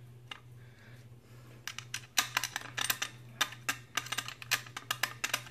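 Sheet-metal electrical access plate on the underside of a garbage disposal being fitted back on, clicking and tapping against the metal housing as its tabs are worked into the slots. The clicks come as a quick, irregular run from about a second and a half in.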